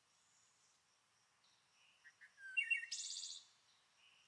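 Bird chirping: a short burst of high, quick tweets lasting about a second, starting about two and a half seconds in.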